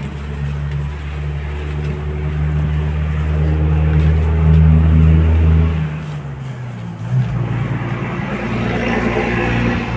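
A vehicle engine running steadily with a low hum that grows louder. About six seconds in it breaks off and gives way to a rougher engine note.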